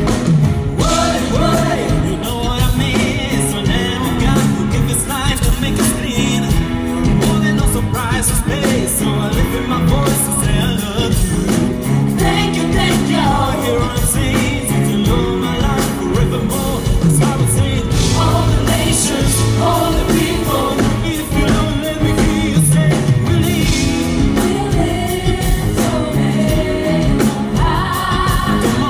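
Live band playing a pop-rock gospel song, with a lead singer over electric guitar and drums, recorded from the audience.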